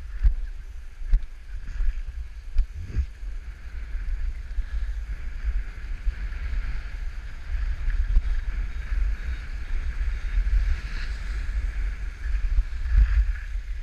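Wind buffeting the microphone of a head-mounted action camera: a gusty low rumble throughout, with a few short knocks in the first three seconds.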